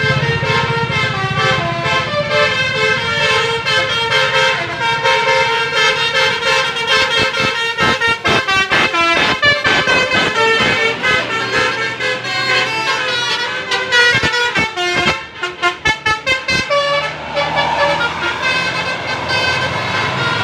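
Basuri telolet bus horn playing a stepping multi-note melody. Fast stuttering runs of notes come in the middle, over the low running of a bus engine.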